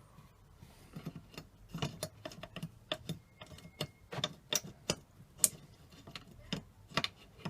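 Metal parts of a Lewmar 34 self-tailing winch clinking and clicking as they are handled and taken apart: irregular sharp clicks begin about a second in, with one brief metallic ring in the middle.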